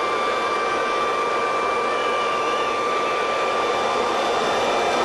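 Electric air blower running steadily: a constant rush of air with a steady high whine, its jet holding a toilet-paper streamer up in the air.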